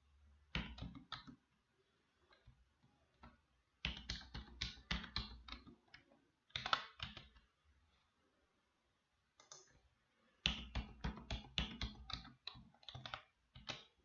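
Typing on a computer keyboard in quick runs of keystrokes, as a password is typed and then typed again to confirm it. There is a short burst about half a second in, then two longer runs, one from about four to seven seconds in and one from about ten and a half to thirteen and a half seconds in.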